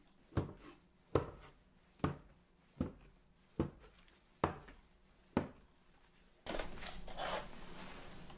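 O-Cedar EasyWring microfiber spin mop head swishing over a wooden floor in back-and-forth strokes, a short swish about every second. Near the end it changes to a longer, steady rubbing sweep.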